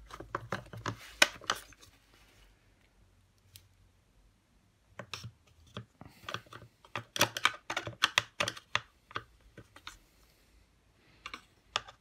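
Quick, irregular clicking and tapping of a screwdriver working small Torx screws out of a Dyson DC41's plastic cyclone housing. The clicks come in two bursts with a pause of a few seconds between, and a few more come near the end.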